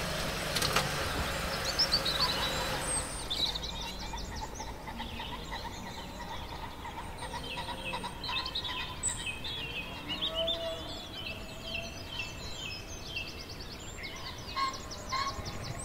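Small birds singing and chirping, with many quick repeated chirps and trills overlapping. A low rumble sits under them for about the first three seconds, then stops.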